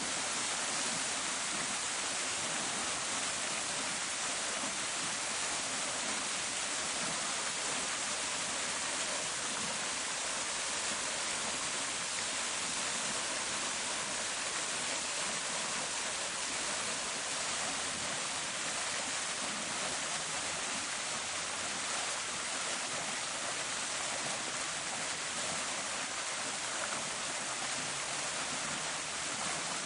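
Park fountain: water splashing steadily down into its basin, an even hiss with no breaks.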